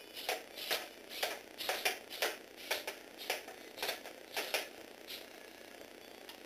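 Lego Technic walking robot dog's plastic feet and leg linkages clacking on a hard tabletop as it walks, about two clacks a second, some in quick pairs. The clacking stops about five seconds in.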